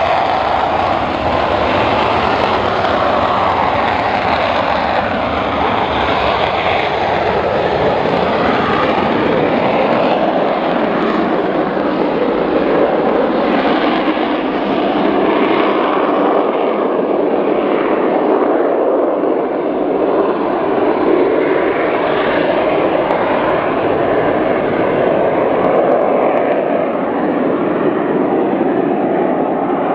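Jet airplane engines giving a steady, continuous roar. The deep rumble thins out about ten seconds in, and the upper hiss slowly falls away over the second half.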